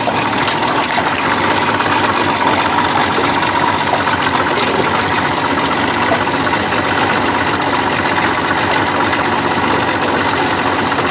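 Boat's outboard motor running steadily at low trolling speed, with water noise around the hull.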